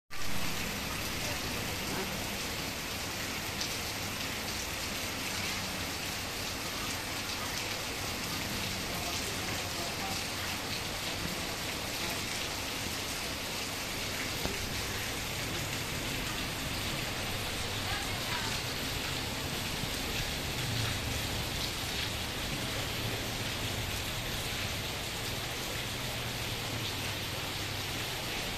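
Heavy rain pouring steadily onto wet pavement, a dense even hiss.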